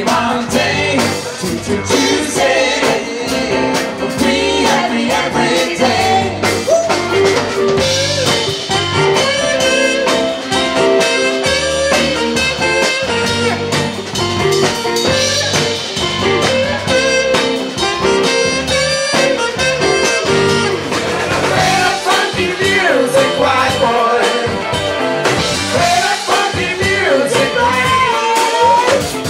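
Live band playing blues-rock, with a man singing lead over electric guitar, saxophone and drum kit.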